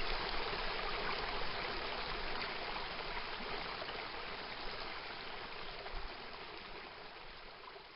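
Steady rush of running water, fading out gradually over the last few seconds.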